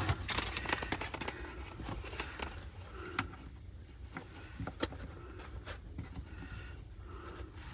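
Faint handling sounds: scattered light clicks and rustles as wires are moved about and the solar charge controller is touched, over a low steady hum.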